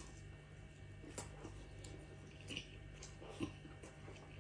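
Faint chewing of a large mouthful of fried chicken fast food, with soft clicks every second or so over a steady low hum.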